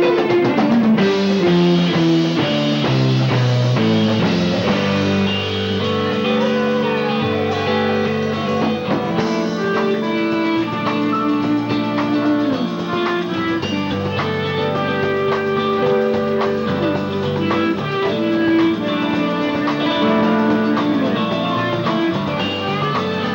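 A live rock band plays an instrumental passage: guitar lines with bent, gliding notes over bass and drums. The sound is a dull, treble-limited mini-cassette recording of the concert.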